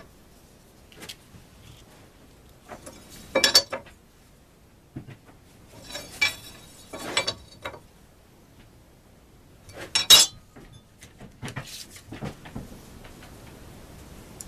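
Scattered metallic clinks and knocks of workshop tools being handled and set down, a few short clatters spread out with the loudest about ten seconds in.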